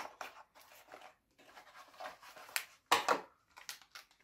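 Small cardboard Raspberry Pi 3 box being opened and its packaging handled: intermittent rustling and scraping of cardboard and packing, with a louder rustle about three seconds in.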